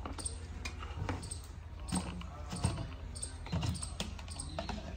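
Light, irregular clicks and taps of spoons against bowls and dishes.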